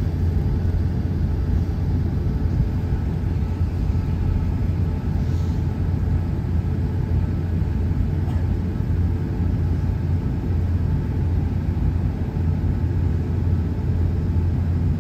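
Steady low rumble inside an airliner cabin: the jet engines and cabin air running while the plane sits on the ground before takeoff.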